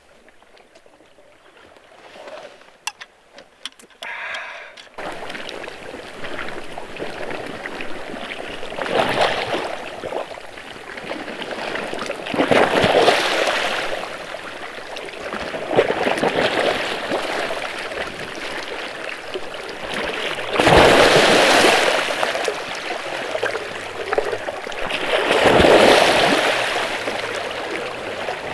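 Lake water lapping and washing against the shore, starting about five seconds in and swelling every three to five seconds. A few faint clicks come before it.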